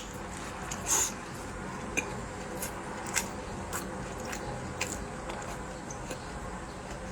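Close-up eating sounds: a person biting and chewing soft bread, with scattered short moist clicks and smacks, the loudest about a second in.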